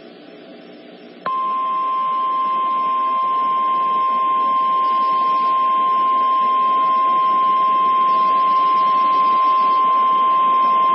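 NOAA Weather Radio's 1050 Hz warning alarm tone: after about a second of faint radio hiss, a single loud steady tone comes on and holds, the signal that an urgent warning broadcast follows.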